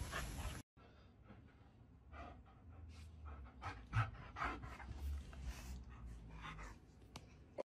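A short scuffling noise cuts off abruptly within the first second. Then a husky pants faintly, about two to three breaths a second.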